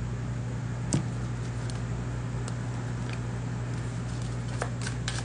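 Tarot cards being shuffled by hand: a quick run of sharp card clicks starting near the end, after a single sharp tap about a second in, over a steady low hum.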